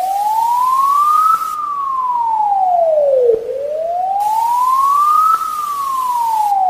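Electronic wailing siren of the kind used in emergency alerts: a single clear tone that slowly rises and falls, twice, about four seconds per rise and fall, over a hiss that cuts in and out.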